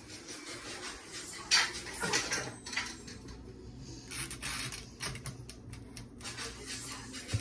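Kitchen clatter: scattered knocks and clinks of dishes and utensils being handled, with a few short scraping or rustling bursts.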